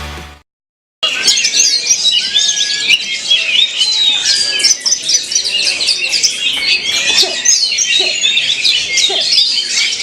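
Rock music fades out, and after a short gap Oriental magpie-robins (kacer) sing in competition: a dense, unbroken stream of rapid, overlapping chirps, trills and whistles.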